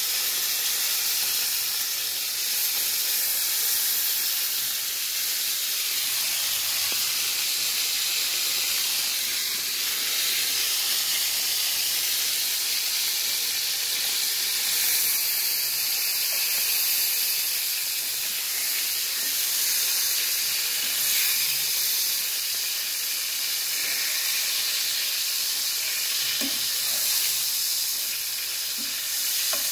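Whole koi fish frying in a wok of hot oil: a steady sizzle and hiss.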